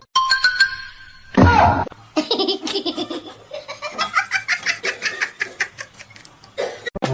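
A person laughing hard in quick rhythmic bursts for several seconds, after a short loud sound about a second and a half in.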